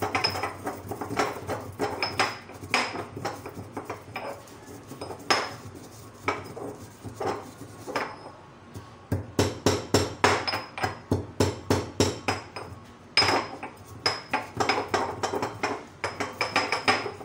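Stone pestle pounding whole fenugreek, nigella, cumin and coriander seeds in a stone mortar: a steady run of sharp knocks, about two to three a second, crushing the seeds coarsely. There is a brief lull around eight seconds in.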